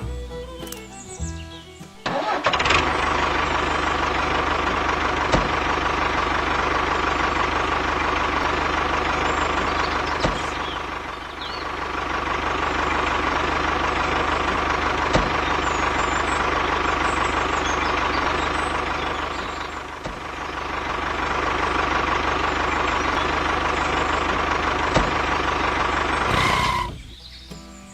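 An engine running steadily. It comes in suddenly about two seconds in, eases down and back up twice, and cuts off shortly before the end.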